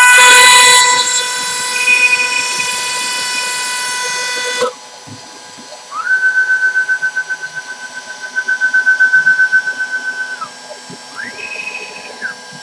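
CNC router spindle cutting a wooden turkey box call blank on a rotary fourth axis: a loud, high whine with overtones and chip noise that drops off about four and a half seconds in as the cut ends. Then a steady whine with a pulsing beat, rising in pitch as it starts and falling as it stops, as the machine's motors move the head, followed by a shorter, higher move near the end.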